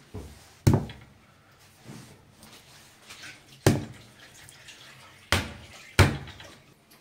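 Raw chicken leg quarters dropped one by one onto a bamboo cutting board: four loud, wet thuds a second or more apart, with a few softer knocks between them.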